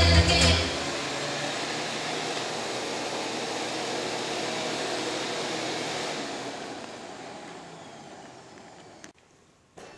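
Upright vacuum cleaner running steadily on carpet, fading away over the last few seconds until it is gone, leaving near silence. Music ends within the first second.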